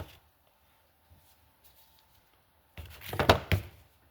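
Metal parts and tools clattering and knocking for about a second, a few sharp strikes close together, about three seconds in, as valve gear is handled while the valves are pulled from a motorcycle cylinder head.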